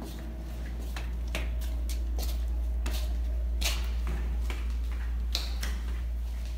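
Footsteps on a hard tiled floor, a few soft separate clicks, over a steady low rumble.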